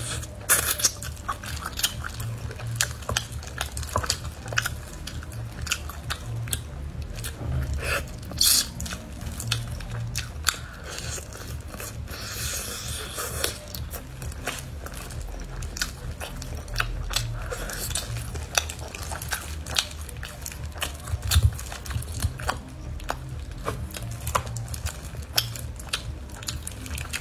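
Close-miked eating of a spicy braised rabbit head: chewing and biting, with many irregular sharp clicks and wet smacks as meat is torn from the bones with gloved fingers, over a low steady hum.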